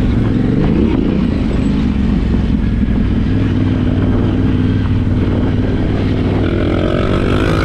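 Yamaha Ténéré 700 parallel-twin engine running steadily under way off-road, then rising in pitch near the end as the rider opens the throttle.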